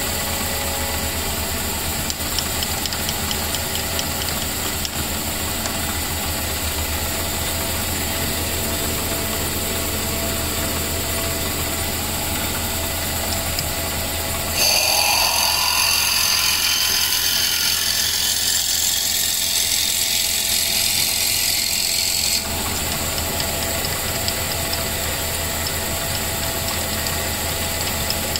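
Metal lathe running steadily with a low motor hum while a twist drill in the tailstock bores into the spinning wooden end of a pool cue, drilling the hole for a joint pin. About halfway through, a louder high hiss and whine starts suddenly, lasts about eight seconds and cuts off.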